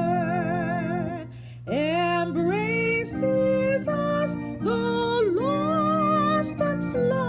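A hymn sung slowly, the voice holding notes with vibrato and sliding between them over a steady instrumental accompaniment; a brief pause in the singing comes about one and a half seconds in.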